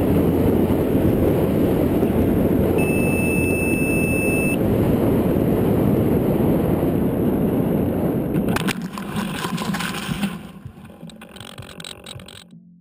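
Onboard-camera sound from a small electric RC plane in flight: a loud, steady rush of airflow and motor noise, with a high electronic beep lasting about two seconds a few seconds in. About eight seconds in the rush drops away into rustling and scraping as the plane comes down into the crop field, then it fades out near the end.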